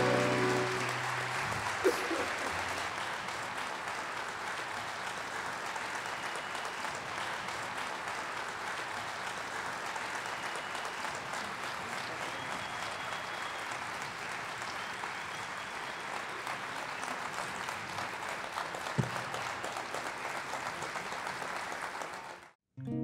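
Audience applauding steadily as the last held accordion notes fade out in the first second. The applause cuts off suddenly near the end.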